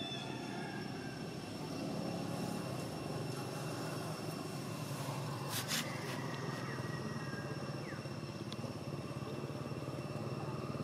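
Outdoor background noise: a steady low rumble with two thin, steady high-pitched tones running through it. A few faint short chirps and one brief sharp crackle a little past halfway.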